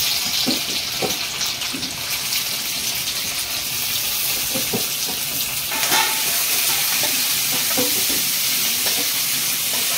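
Sliced onions sizzling in hot oil in an aluminium kadhai, with short scrapes of a steel spatula against the pan as they are stirred.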